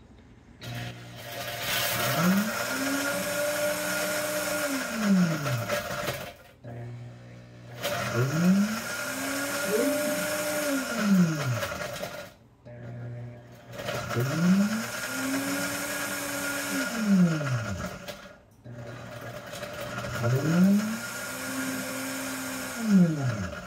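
Vevor Professional 68 oz blender crushing ice on its crushed-ice preset, with its sound-dampening enclosure closed. The motor pulses four times, about six seconds apart. Each time it spins up, holds for about two seconds, then winds down, with short pauses between.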